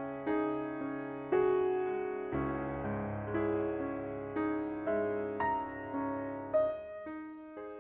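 Background music: slow piano playing, single notes and chords struck about every half second to a second, each dying away.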